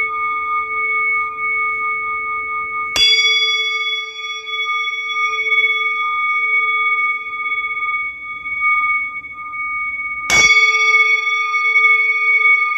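Singing bowl ringing, struck twice about seven seconds apart; each strike renews a long, slowly fading tone with several overtones.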